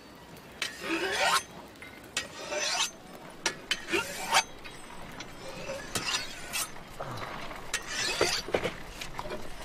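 A blade being sharpened or filed by hand: about five long rasping strokes, with a few light clinks between them.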